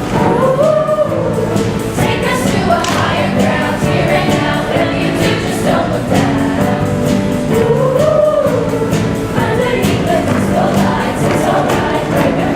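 A choir singing a song with instrumental backing, several voices together over a steady beat.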